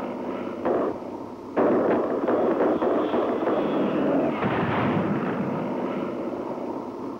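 Bell P-39 Airacobra's cannon and machine guns firing, with shells bursting in the water: a dense, rapid clatter of shots and bursts. It eases off about a second in, then resumes abruptly and carries on, on a dull, old film soundtrack.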